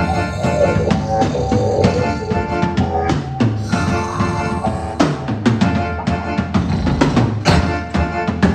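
Rock band playing an instrumental passage: a drum kit with bass drum and snare keeping the beat under guitar, bass and keyboards.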